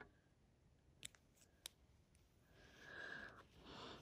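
Faint handling noise of plastic Beyblade parts: two small clicks, then a soft rubbing scrape for about a second in the second half.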